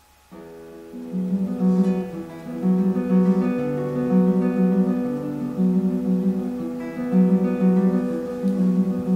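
Solo classical guitar played fingerstyle. The piece begins about a third of a second in, soft at first and louder after a second, with plucked upper notes ringing over a pulsing lower line.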